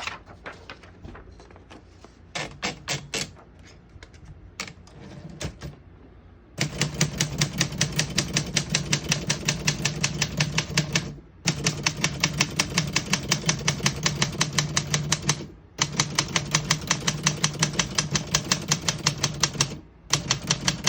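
1977 Olympia SM-8 manual portable typewriter being typed on: a few separate keystrokes at first, then a fast, steady run of typebars striking the platen from about a third of the way in, broken by two or three short pauses.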